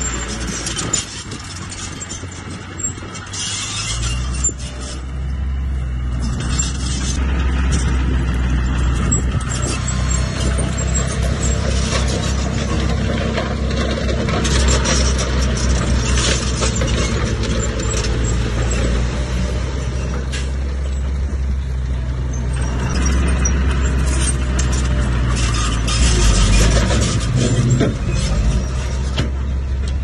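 A mini dump truck's diesel engine revving up about four seconds in to power its tipper bed, with the rock load sliding and rattling out as the bed rises.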